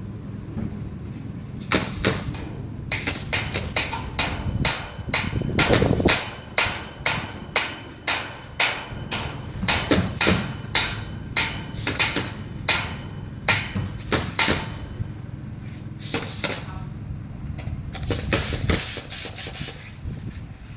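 Hammer blows in quick runs of about two strikes a second, with short pauses between the runs, over a steady low hum.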